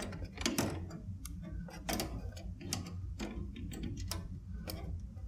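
Irregular sharp clicks and taps of small metal parts being handled in a desktop PC case, as the rear expansion-slot covers are worked loose to fit a graphics card, over a faint low hum.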